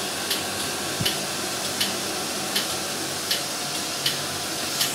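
Reverse-osmosis water purification plant running: a steady hiss of water with a low pump hum. A sharp tick repeats regularly, about every three-quarters of a second.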